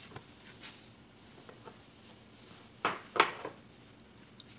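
Quiet room tone broken about three seconds in by two or three quick knocks of household items being handled, the second the loudest.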